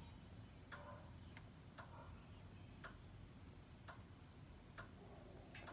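Faint, sharp clicks about once a second from the ABS hydraulic control unit of a 2011 Ford Edge. This is the right front inlet valve clicking as a scan tool switches it on and off, the sign that the valve is working.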